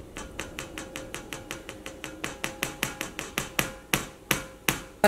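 Quick light taps, about six a second, as a flour-dredged chicken piece is shaken and knocked against a bowl of flour to shake off the excess flour. The taps grow louder and fewer near the end.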